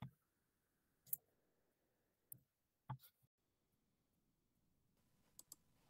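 Near silence while a video call's audio drops out, broken by a few faint, scattered clicks.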